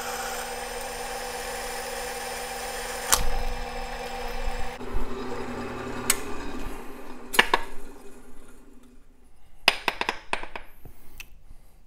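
Drill press running, its 5/32-inch tap drill cutting through a cast-aluminium motor plate for an M5 thread. The motor hum changes about five seconds in and fades out by about nine seconds. Several sharp metallic clinks follow as the plate is handled on the chip-covered table.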